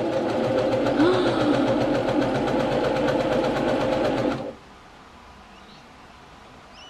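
Brother PQ1500SL straight-stitch sewing machine running, its needle stitching through fabric in a fast, even rhythm over a steady motor hum; it picks up a little about a second in and stops about four and a half seconds in.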